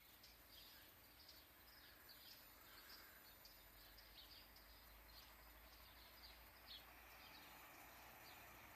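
Faint birds chirping: many short, high, falling notes scattered throughout, over a steady low background hum.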